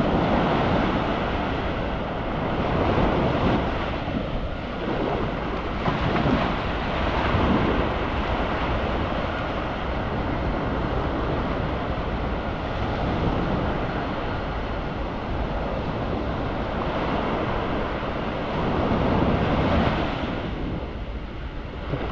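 Surf washing onto the beach in swells every few seconds, with wind buffeting the microphone.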